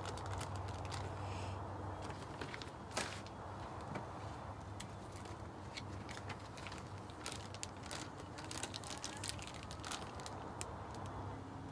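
Clear plastic vacuum-sealer bags crinkling and crackling in gloved hands as salmon fillet pieces are slipped into them, in many small irregular clicks. A steady low hum runs underneath.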